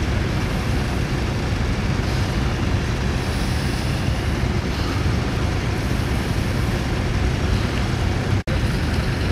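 Vintage tractor engines running under a steady, heavy rumble of wind on the microphone. The sound cuts out for an instant near the end.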